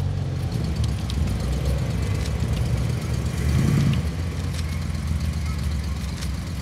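A big Ford Galaxie's engine idling with a steady low rumble, swelling louder for a moment about three and a half seconds in.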